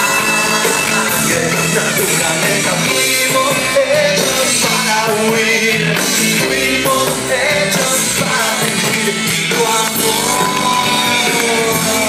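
Live rock band playing with a singer, heard from inside the audience.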